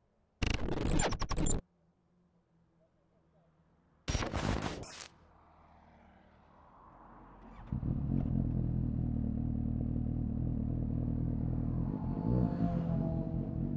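Two short loud scraping noises, then about eight seconds in a 2017 Suzuki GSX-S750's inline-four engine comes in loud and runs steadily at idle through a Yoshimura R11 exhaust with its dB killer removed, with a brief blip of revs near the end.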